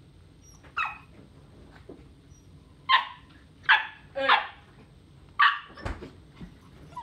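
Small dogs barking in play: about five short, high-pitched barks, spaced irregularly.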